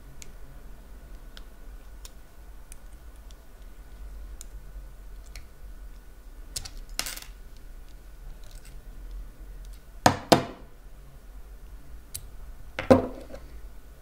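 Small metal parts of a Fratelli Facchinetti half euro cylinder lock clicking and clinking as it is taken apart by hand: faint ticks, a click about seven seconds in, two sharp metal clicks in quick succession about ten seconds in, and another with a short ring near the end.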